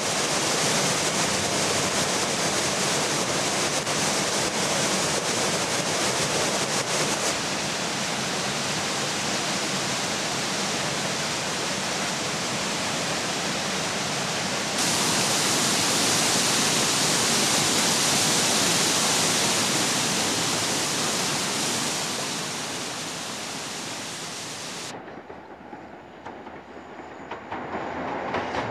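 Waterfall rushing with a steady, heavy roar of water. About halfway through it turns brighter and hissier, and it drops away near the end.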